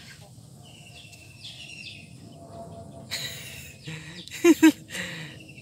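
Faint outdoor background with small birds chirping, then two short, loud calls in quick succession about four and a half seconds in.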